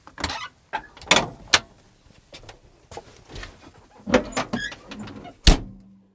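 A run of sudden mechanical clanks and thuds with short whooshing noise, about seven in all, the loudest a heavy hit about five and a half seconds in, with a low hum under the last second: a machinery-style sound sting over the logo.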